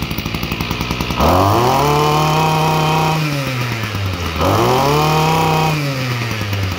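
Ryobi 26cc brush cutter's small two-stroke engine idling, then revved up twice, each burst of throttle held for a second or two before dropping back to idle.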